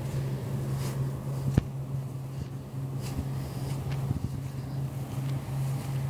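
A steady low hum, with a few faint clicks.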